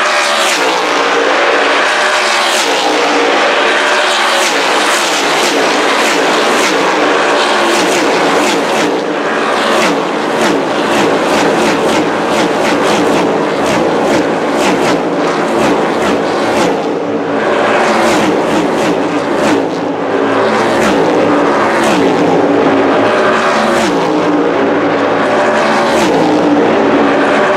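A pack of NASCAR Cup stock cars racing past at close range, their pushrod V8 engines at full throttle. The sound is loud and continuous, with one engine note after another rising and then dropping in pitch as each car goes by.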